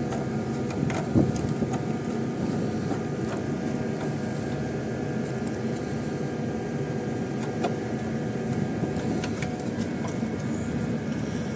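Steady machinery hum with several fixed tones, with a few light clicks and taps of hand work on the unit.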